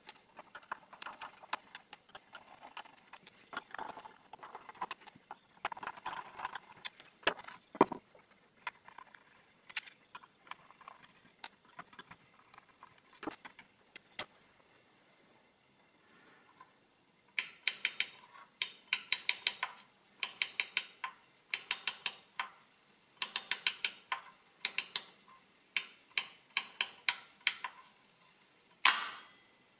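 Scattered light metallic clicks and knocks as the loose screws and the cover of a 1920s Quixsum fractional adding machine are handled, with one sharper knock. From a bit past halfway, the exposed toothed number wheels are turned by hand, giving bursts of rapid ratcheting clicks about once a second as the teeth pass the spring arms. A single louder snap comes near the end.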